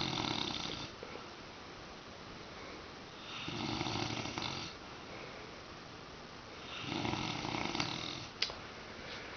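A man snoring heavily in his sleep: three long snores, each about a second and a half long, roughly three and a half seconds apart.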